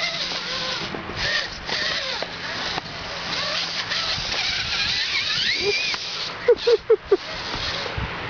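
Electric motor and gearbox of an RC rock crawler whining under load as it climbs rock, the pitch rising and falling with the throttle. About six and a half seconds in come four short, loud squeaks in quick succession.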